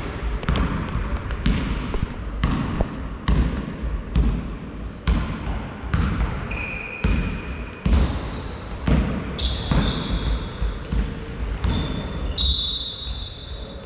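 Basketball bouncing on a sports hall floor, dribbled about twice a second and echoing around the hall, with short high sneaker squeaks on the court from about midway.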